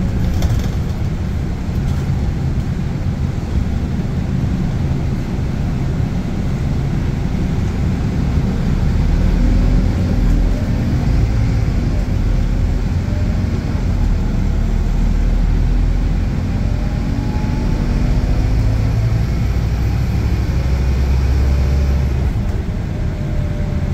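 Scania K280UB bus's engine and ZF automatic gearbox under way, the engine note gliding up as it pulls through the gears and growing fuller and louder about ten seconds in.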